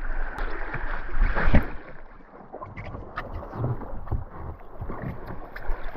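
Floodwater rushing and splashing around a whitewater kayak on a high river, louder in the first second and a half, with scattered low knocks.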